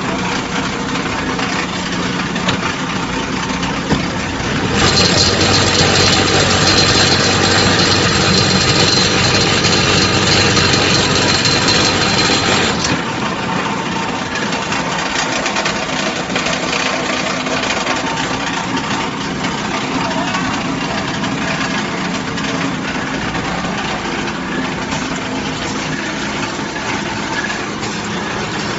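Popcorn can packaging line machinery running with a steady mechanical hum. About five seconds in, a louder noisy run with a high steady whine starts; it cuts off sharply some eight seconds later, leaving the hum.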